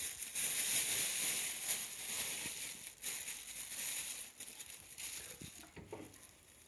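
Crinkling, rustling noise, loudest in the first three seconds and fading towards the end, with a few soft knocks near the end.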